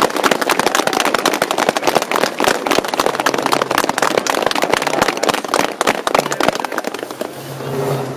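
Crowd applauding, a dense, steady clatter of many hands clapping that thins out about seven seconds in as music starts.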